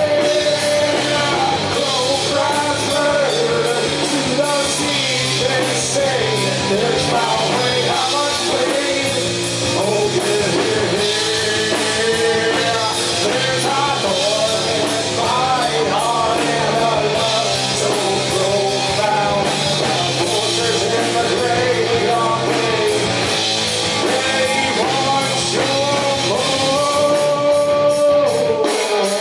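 Live rock band playing loud: electric guitars and bass guitar under a singer's vocal.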